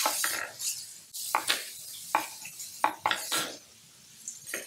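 Chef's knives knocking on plastic cutting boards as kielbasa and onion are sliced: about half a dozen sharp, irregular knocks.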